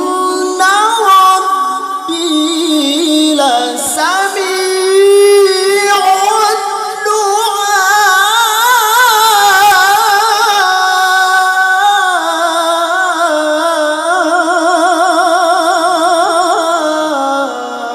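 Quran recitation in the melodic tilawah style: a single reciter's voice holds one long, high sung phrase with fast wavering ornaments, stepping between pitches and falling away near the end.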